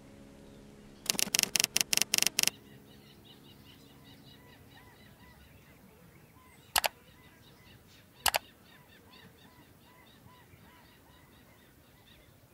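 A quick run of about eight sharp typewriter-key clacks, a typing sound effect for the end-card text, followed by two single sharp clicks about a second and a half apart. Faint birds chirp steadily underneath.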